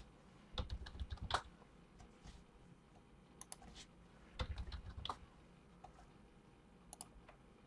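Faint, irregular clicks and taps of typing on a computer keyboard, in small scattered clusters with a few soft low thumps among them.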